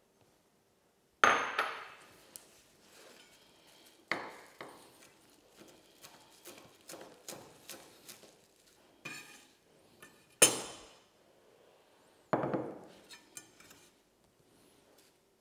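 Chef's knife chopping fresh parsley on a wooden cutting board: a run of light, fairly regular knocks of the blade on the board, broken by a few much louder knocks.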